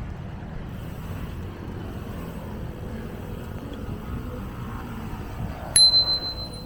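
Steady rush of wind and tyre noise while riding a bicycle. Near the end comes a single sharp ding of a bicycle bell, ringing on for about a second.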